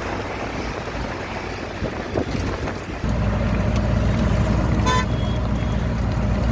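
Railway station ambience: a steady noise, then a louder low rumble that comes in suddenly about three seconds in, and a short horn toot near five seconds.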